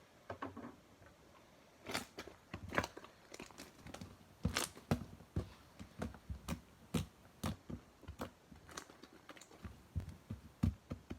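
Slime being squished and poked by hand, giving a run of sharp sticky pops and crackles, about two a second, starting about two seconds in.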